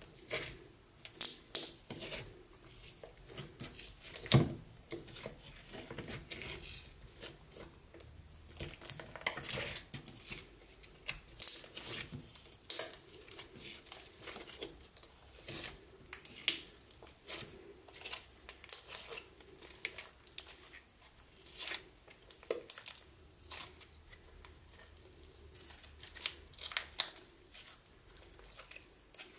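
Sticky slime being worked by hand, giving an irregular stream of crackling, popping clicks as it sticks and pulls away, with one louder thump about four seconds in.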